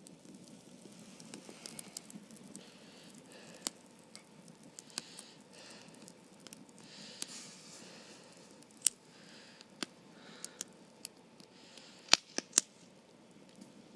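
Irregular sharp clicks and soft rustling over a low steady background hiss, with a cluster of louder clicks near the end.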